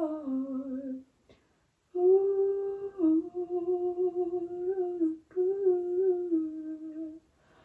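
A woman humming a slow melody to herself in long held notes, with a pause of about a second near the start and a brief break about five seconds in.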